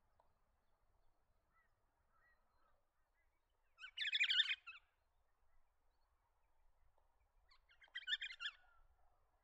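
Pale-headed rosella calling: two short bursts of rapid, high chattering notes, the first about four seconds in and the second about four seconds later.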